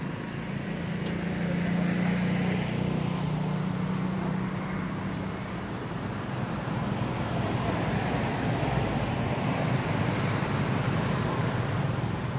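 A motor vehicle engine running steadily, a low hum under a hiss of traffic noise.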